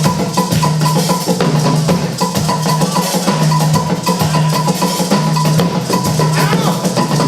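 Percussion-driven music: dense, fast drum strikes over a low note that repeats in short held phrases.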